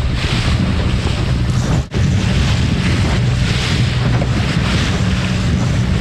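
Wind buffeting the microphone on a boat under way, over a steady low rumble of the boat's motor and rushing water. The sound drops out for an instant about two seconds in.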